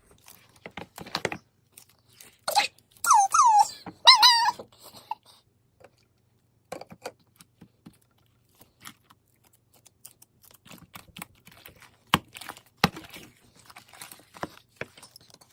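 Fast-forwarded sound of slime being mixed and kneaded: scattered wet clicks, crackles and squishes. Two brief squeaky, sped-up bits of voice come about 3 and 4 seconds in.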